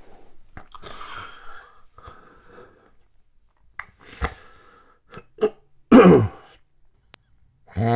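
A sleeping man's irregular sleep-apnea breathing: a long breathy breath about a second in, a few short snorts and clicks, a loud snort about six seconds in, and the start of a loud, low snore right at the end.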